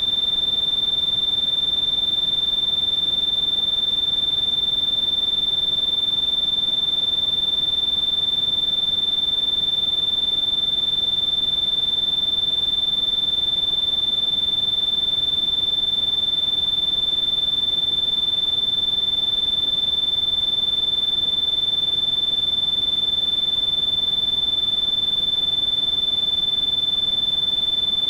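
Electronically generated tinnitus-therapy tone: a single steady, high-pitched pure beep held without a break or change, over a faint hiss.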